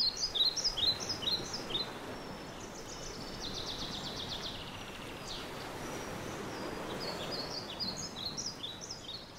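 Small birds chirping in quick runs of short, high notes at the start and again near the end, with a buzzy trill in between, over a faint steady hiss of outdoor ambience.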